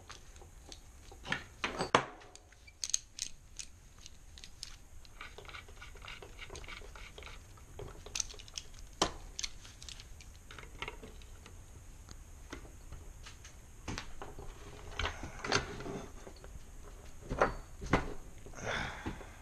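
Metal hand tools being handled and set down on a wooden table: scattered clinks and knocks, more of them near the end.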